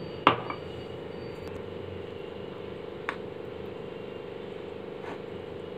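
A spoon clicking against a small plastic bowl as custard powder is mixed into cold milk: one sharp click just after the start and two faint taps later, over a steady low hum.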